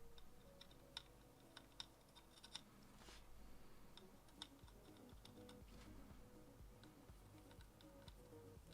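Faint, scattered light clicks and taps, a handful of them at irregular intervals, over faint background music.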